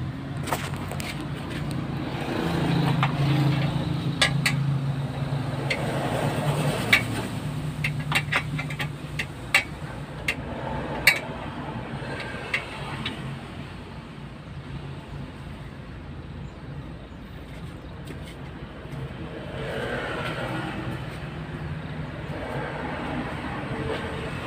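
Scattered sharp metal clinks and taps of hand work on a radiator being fitted into a truck's engine bay, most of them in the first half. Under them runs a steady low hum of a running vehicle engine.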